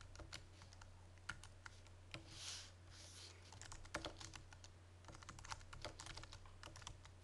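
Faint typing on a computer keyboard: quick, irregular key clicks, with a short break about two and a half seconds in.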